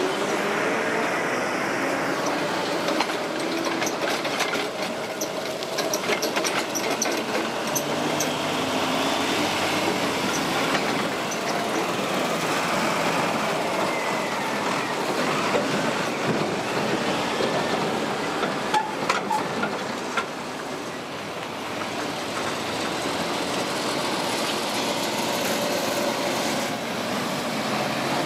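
Heavy lorry with a flatbed trailer driving slowly over a railway level crossing: diesel engine running, tyres rumbling and wheels knocking over the rails, with a few sharp clanks.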